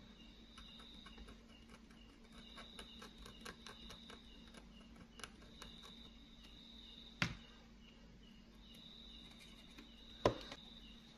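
Faint insect chirring, a high steady trill that comes and goes in stretches of a couple of seconds, over a steady low hum. Light ticks fall in the first half, and two sharp knocks come about seven and ten seconds in.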